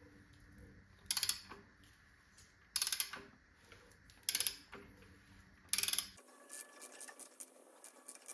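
A ratchet wrench on the crankshaft bolt clicks in four short bursts about a second and a half apart as the engine is turned over by hand, then a few fainter scattered ticks near the end. The crank is being rotated to check the timing of the newly fitted timing belt.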